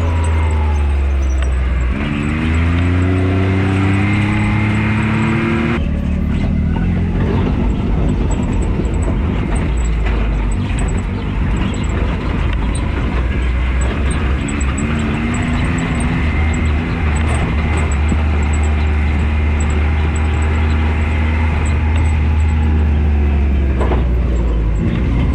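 Can-Am Maverick X3 RC side-by-side under way, its engine running loud and continuous: the engine note falls over the first two seconds as it slows, rises and holds, turns rougher and noisier from about six seconds in, then steadies before dropping again near the end.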